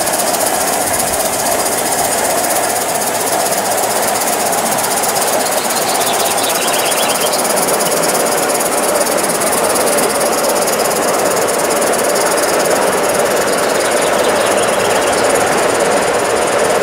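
Live-steam model of a Southern Pacific F-4 2-10-2 goods locomotive running under steam, a fast, steady chuffing mixed with steam hiss.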